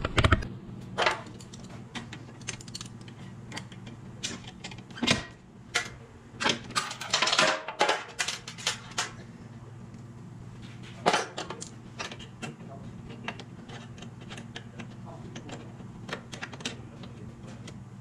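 Irregular metallic clicks, clinks and clanks of tools and plow hardware being handled as the lift cylinder of a Fisher snow plow is unhooked, busiest and loudest about five to nine seconds in, over a steady low hum.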